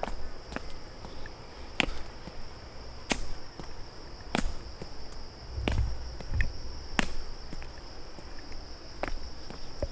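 Insects buzzing in a steady high drone, with sharp taps at a walking pace, about one every second and a half, from footsteps on the trail.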